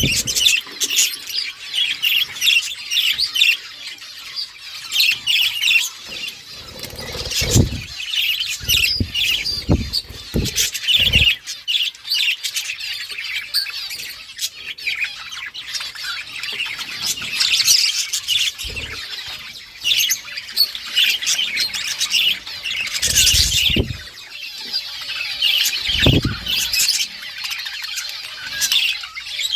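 A flock of budgerigars chirping and chattering continuously with high, quick calls and squawks. A few dull low thuds break in now and then.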